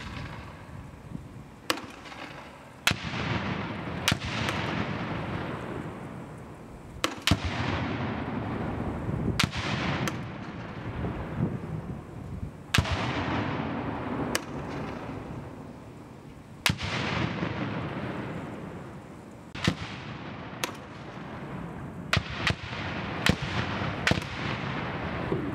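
40 mm grenade launchers firing and grenades detonating downrange. There are a dozen or more sharp reports at uneven intervals, the heavier blasts trailing a rumbling echo that fades over a couple of seconds.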